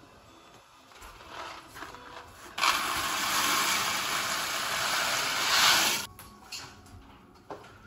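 Dry elbow macaroni pouring out of a cardboard box into a large steel pot of boiling water: a dense rattling hiss that starts abruptly about two and a half seconds in and cuts off about three and a half seconds later. Softer rustling of the box comes before it.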